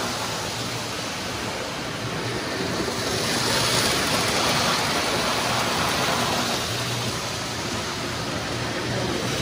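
Toy trains running on a three-rail O gauge layout: a steady rushing rumble of wheels and motors on the track, with a low hum underneath.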